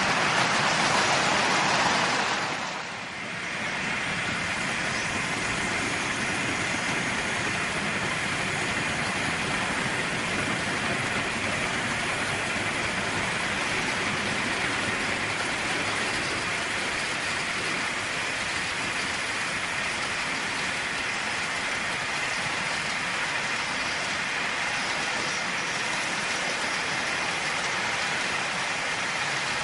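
Märklin HO model trains rolling on metal track, a steady rattling hiss of wheels and running gear. The sound briefly drops about three seconds in, then carries on evenly.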